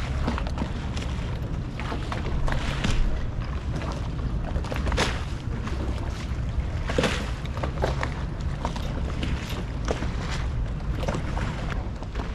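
Lagoon water lapping and slapping irregularly against moored gondolas and the stone quay, over a steady low rumble.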